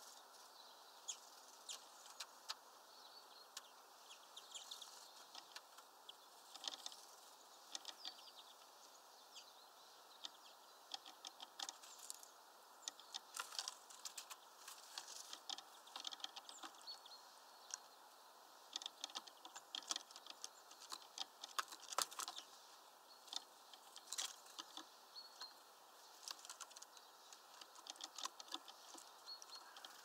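Irregular clusters of quick, light taps: a bird's bill pecking at a suet ball held in a wire spiral feeder.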